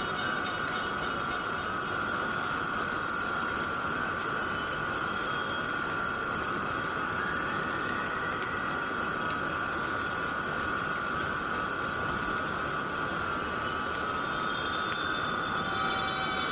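Steady, unchanging drone: high whining tones over a dense hiss, like a nature-ambience bed.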